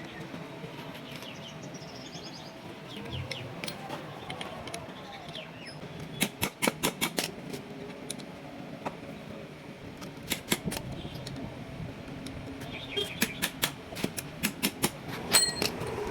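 Several bursts of rapid, sharp clicks, each a quick run of taps lasting a second or two, over a steady low background noise.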